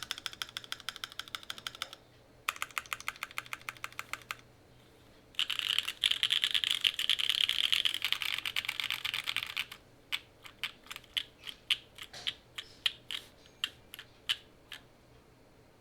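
Keycult No.2/65 mechanical keyboard with an aluminium plate, lubed MM switches and GMK keycaps being typed on: two short runs of rapid keystrokes with brief pauses, a long stretch of very fast typing in the middle, then slower single key presses near the end.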